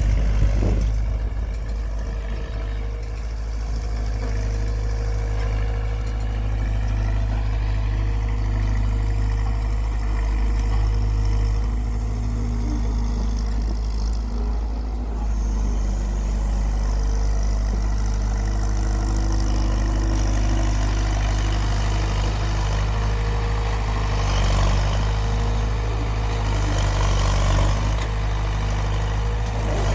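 Heavy engine running steadily, a constant low hum that holds the same pitch throughout.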